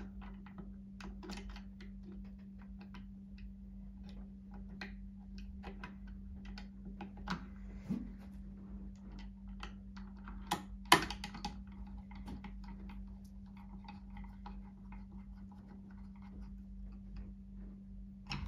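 Irregular small clicks and taps of tools and metal parts being handled on an opened Pfaff 1229 sewing machine, with a sharper knock about eleven seconds in, over a steady low hum.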